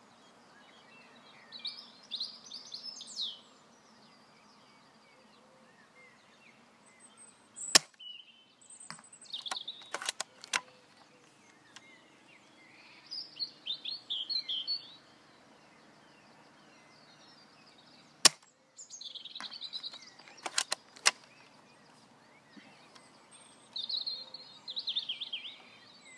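Two sharp shots from a Novritsch SSG24 spring bolt-action airsoft sniper rifle, about ten seconds apart, each followed two to three seconds later by a quick run of three clicks. Between them songbirds sing in short high phrases.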